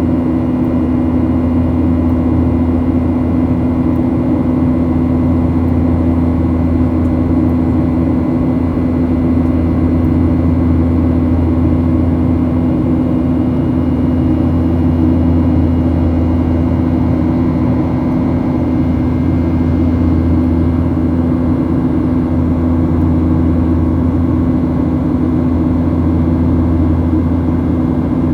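Steady in-flight cabin noise of a Boeing 737 airliner: jet engine drone and rushing air with a constant low hum, unchanging throughout.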